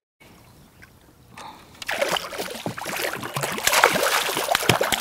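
Water splashing and sloshing as a hooked fish thrashes at the surface while being released by hand. It starts faintly and builds to a busy, crackling splash about two seconds in.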